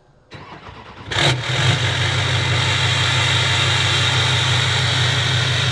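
Duramax V8 turbo-diesel cold start: the starter cranks for under a second, then the engine catches about a second in and settles into a steady idle through a straight-piped exhaust stack.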